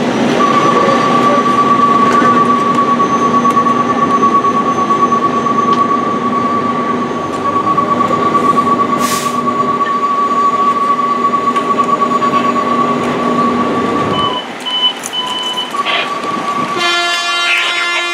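Loud, steady mechanical running noise with a single steady high-pitched tone over it, which stops abruptly about 14 seconds in. A few short beeps follow, then a brief multi-tone sound near the end.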